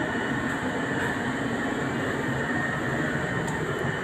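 Steady, even background noise with no distinct events: a constant drone under the outdoor recording.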